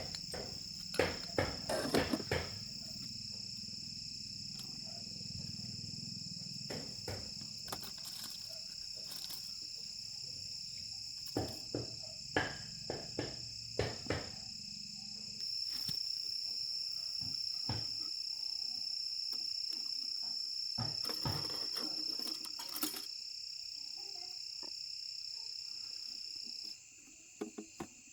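Steady high-pitched insect drone, with scattered clicks and knocks over it. The drone cuts off suddenly near the end.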